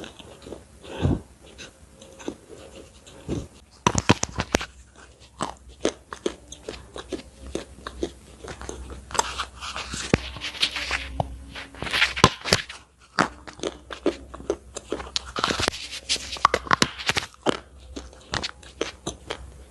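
Close-miked ASMR mouth sounds: sharp mouth clicks, sparse at first and then dense from about four seconds in, with crunchy biting and chewing on a white item pushed into the mouth, loudest around ten and fifteen seconds in.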